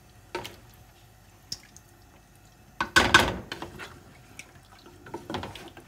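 Coconut milk pouring from a metal jug into a metal pot of chicken curry while a wooden spoon stirs it: wet liquid sounds that come and go, the loudest lasting under a second about three seconds in.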